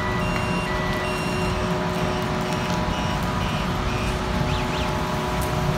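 Rainy street ambience: a steady wash of rain and road traffic with a constant hum underneath, broken by short electronic beeps at intervals and two quick chirps a little after the middle.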